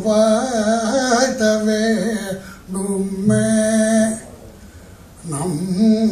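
A man's voice singing a slow melodic chant, long held notes that waver in pitch, in phrases with a break of about a second near the end.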